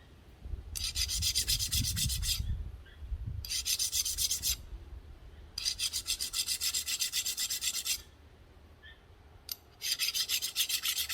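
Hand file rasping on the rusty steel keyway of a motorcycle steering stem, in four bouts of quick strokes with short pauses between, cleaning up rust in the slot.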